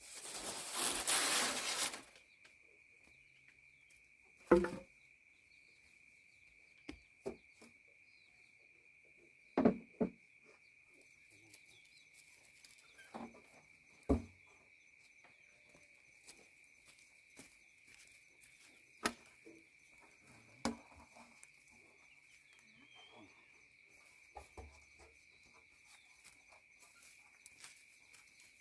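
A steady high insect drone, like crickets, runs throughout. Over it come scattered knocks and thumps, with a short loud rushing noise in the first two seconds.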